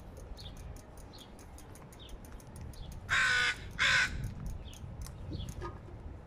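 A bird calling loudly twice in quick succession, about three seconds in, each call about half a second long, over faint short high chirps repeating roughly twice a second.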